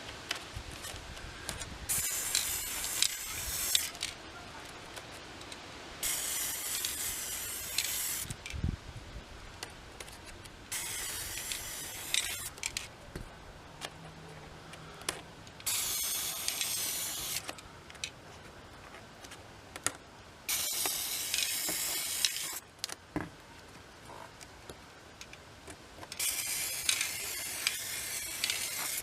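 Aerosol spray paint can sprayed in six short hissing bursts of about two seconds each, a few seconds apart, with small clicks between them.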